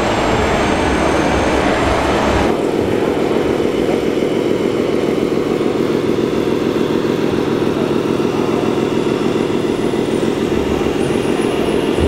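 Diesel-engine sound from a radio-controlled Scania 8x8 tipper truck's sound module: a steady, fast-pulsing rumble from a small speaker, with little deep bass. It starts at a sudden change about two and a half seconds in. Before that there is a broader, even noise of machinery.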